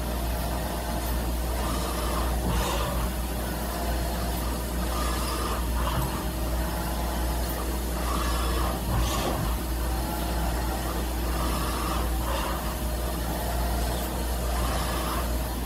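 CNC milling machine tapping threaded holes in steel flat bar under flood coolant: a steady low hum with coolant hiss, and a short cutting sound every couple of seconds as the tap feeds into and reverses out of a hole.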